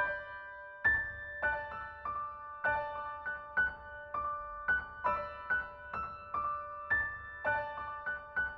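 Gentle instrumental background music: a piano-like keyboard plays a melody of single ringing notes in a repeating phrase.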